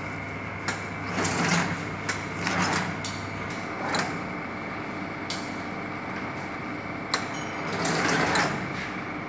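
Book sewing machine running: a steady motor hum with mechanical clacks and swishes coming at uneven intervals, roughly one a second.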